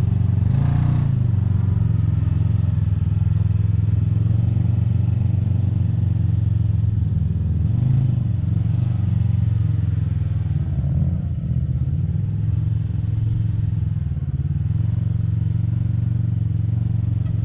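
Kawasaki KRX 1000's parallel-twin engine running under load while it climbs through sand and over rock, its note swelling and easing a few times with the throttle.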